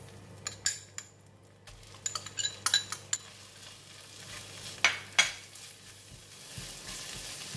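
A spoon and spatula click, knock and scrape against a non-stick wok as cooked rice is tipped in and stirred into nearly set egg. Two louder knocks come about five seconds in, and a sizzle rises near the end.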